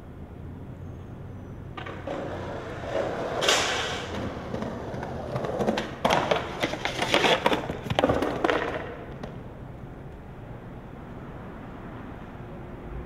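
Skateboard wheels rolling on pavement, then a sharp pop about six seconds in and a couple of seconds of loud clattering and scraping impacts as the board and rider come down in a slam.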